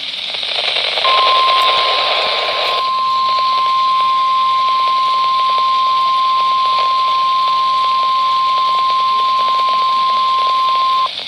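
NOAA Weather Radio 1050 Hz warning alert tone: one steady high-pitched beep starting about a second in and holding for about ten seconds, over radio static hiss. It signals that a new warning is about to be broadcast.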